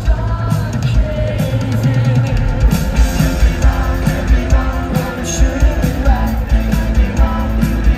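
Rock band playing live: drum kit keeping a steady beat under bass, guitar and a sung lead vocal, loud and full.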